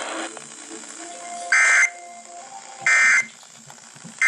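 Emergency Alert System end-of-message signal: three short, shrill digital data bursts (the SAME "NNNN" code) about a second and a half apart, marking the end of the alert message.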